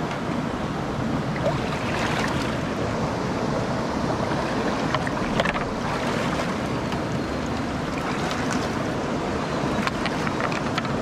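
A small rocky stream rushing steadily, with a few short splashes of boots wading through the shallow water.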